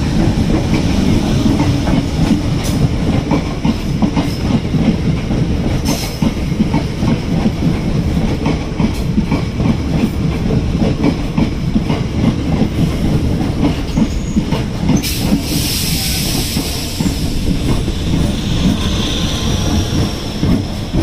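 MEMU Express (electric multiple-unit train) passing close by on the next track: a steady loud rumble with wheels clattering over the rail joints, and a brief high hiss about fifteen seconds in.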